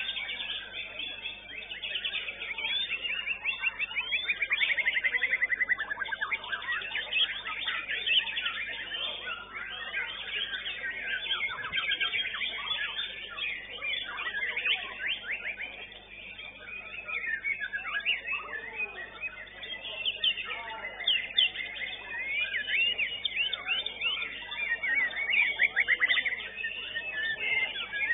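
Several white-rumped shamas (murai batu) in competition singing at once: dense, overlapping whistles, trills and fast chattering phrases, with the loudest stretches about four seconds in and again near the end.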